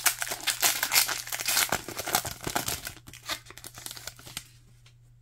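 Foil trading-card pack wrapper being torn open and crinkled by hand: a dense crackling for about three seconds that thins out and stops shortly before the end.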